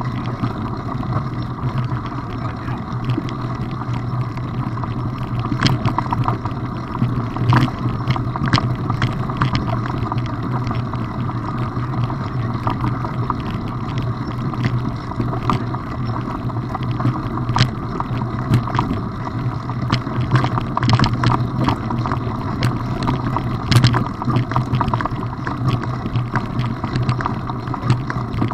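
Mountain bike rolling along a loose gravel track: a steady rumble of tyres on stones and wind on the microphone, with frequent sharp clicks and rattles from stones and the bike.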